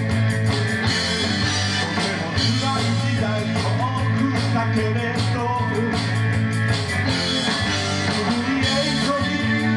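Live rock and roll band playing with electric guitars, bass and drums at a steady beat, with a man singing, heard through a television's speakers.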